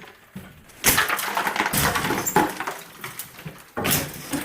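Loose brick and mortar rubble from a removed chimney crunching and clattering in a few irregular bursts.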